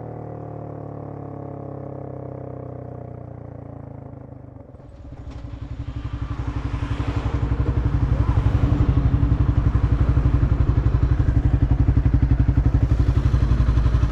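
A droning tone of music fades, then about five seconds in the Honda CBR250R's single-cylinder engine comes in, running with a fast, even pulse, growing louder over a few seconds and then holding steady.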